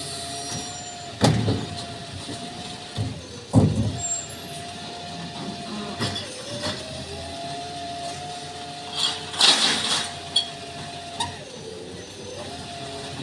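Garbage truck working, with a steady whine that dips in pitch now and then, two heavy knocks about a second in and near four seconds, and a short hiss of air around nine and a half seconds.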